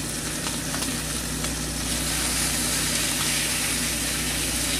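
Food sizzling steadily in a hot frying pan on a gas burner, growing a little louder about two seconds in, with a few light scrapes and ticks of a utensil stirring in the pan.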